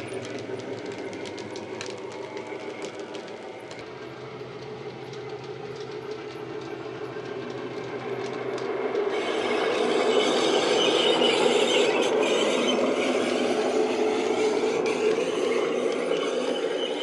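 Sound decoder in a Dapol OO-gauge Class 73 model playing the locomotive's diesel engine sound through a small speaker, with faint clicks of the model's wheels on the track. It dies away, then grows louder from about nine seconds in as the train comes back toward the microphone.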